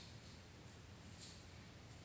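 Near silence: room tone, with one short, faint hiss about a second in.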